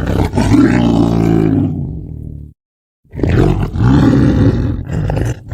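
Lion roaring: two long, deep roars, each about two and a half seconds, with a short silent gap between them.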